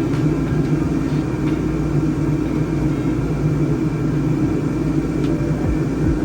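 A vehicle engine running steadily with a low rumble and a few faint clicks.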